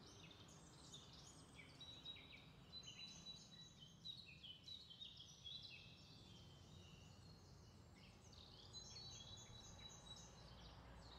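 Near silence, with faint birds chirping in the background in two spells of many short, high notes.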